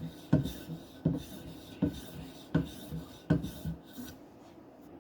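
Knife blade being drawn in strokes across a hard polymer strop charged with oil and diamond emulsion. There are six strokes, about one every three-quarters of a second, each a sharp scrape, and they stop about four seconds in.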